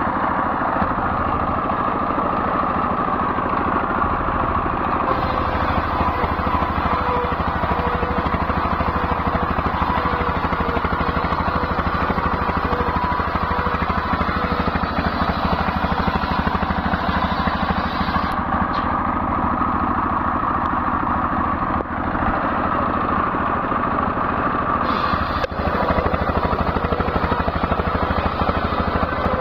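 Belt-driven circular saw ripping coconut-palm timber, powered by a horizontal single-cylinder diesel engine running steadily under load. The saw's cutting whine swells and eases as each slab is pushed through.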